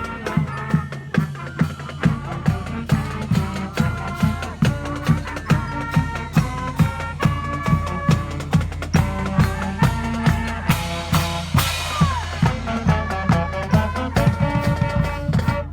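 High school marching band playing: brass holding chords over a steady drum beat of about two strokes a second, with a cymbal-like crash near the middle. The music breaks off near the end.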